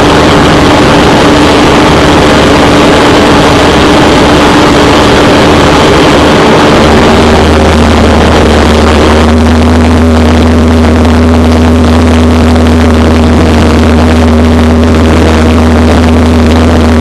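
Single-engine piston airplane's engine and propeller droning steadily, heard from inside the cockpit. The pitch steps down about seven seconds in as power is reduced on the landing approach.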